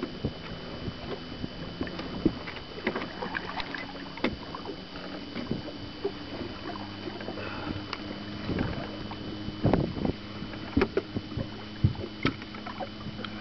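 Knocks, clatter and short splashy bursts in a small fishing boat as a big walleye is netted and brought aboard, over the steady hum of the boat's motor running.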